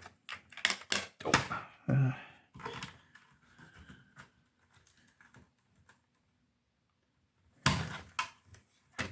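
Clicks and knocks of a Tascam Porta 02 cassette ministudio's case being handled and its top and bottom halves pulled apart: a run of sharp clicks over the first few seconds, a quiet stretch, then a louder clatter near the end.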